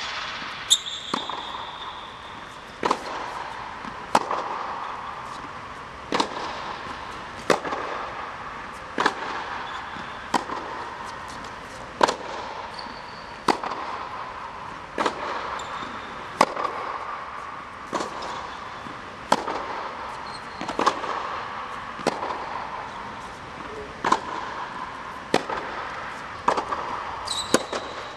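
Tennis balls struck by rackets in a steady baseline rally, a sharp echoing pock about every second and a half, with fainter bounces on the court between hits, over a steady background noise.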